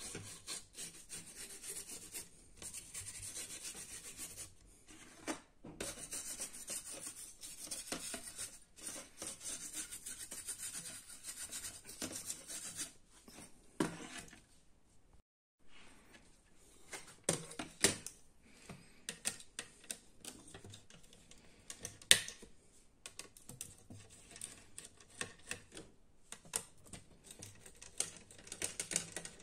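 A small screwdriver working the screws of a laptop motherboard's cooling fan and heatsink makes a scratchy rubbing for about the first dozen seconds. After that come scattered light clicks and knocks as the board and cooler are handled and set down on a wooden table.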